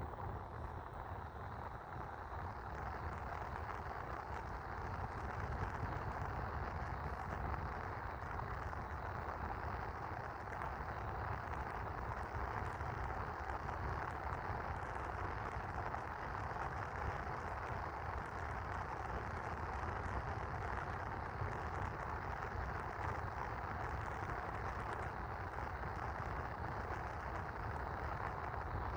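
Split air conditioner indoor unit's blower fan running at a steady speed, an even airy whoosh over a low hum.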